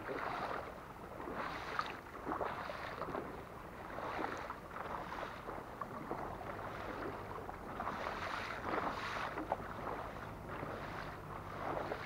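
Kayak paddle strokes dipping and splashing in sea water, a swell of water noise about every second. A low steady hum comes in about halfway through.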